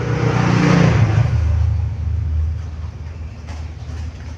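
A motor vehicle passing close by: its engine note falls in pitch and is loudest about a second in, then a low steady engine hum carries on.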